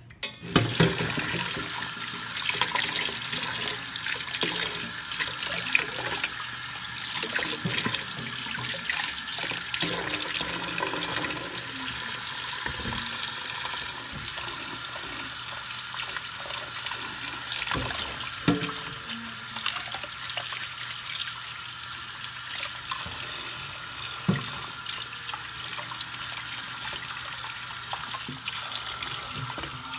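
Kitchen tap running into a stainless steel bowl of cucumbers in the sink, a steady rush of water that starts about half a second in, while hands rub and turn the cucumbers in the stream. A few short knocks and splashes sound over it.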